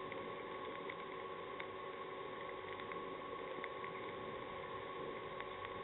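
Steady outdoor background noise with a faint constant hum, and a few faint ticks scattered through it.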